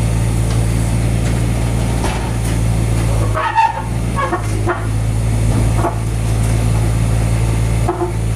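An engine running steadily with a low hum, with a brief louder knock about three and a half seconds in.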